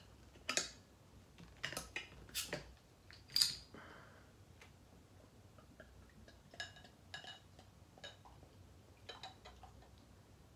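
A glass bottle of brown ale being uncapped and handled. Sharp clicks and clinks of the cap, the opener and glass come in the first few seconds, the loudest about three and a half seconds in. The beer is then poured into a pint glass, softer, with scattered faint clicks and glugs.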